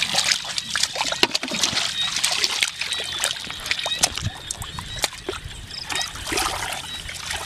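Shallow water splashing and sloshing in many short, irregular splashes as people grope for fish by hand.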